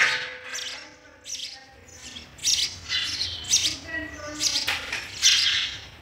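House sparrows chirping at the nest as the chicks are fed: a run of short, high chirps, faint for the first two seconds and then about two a second.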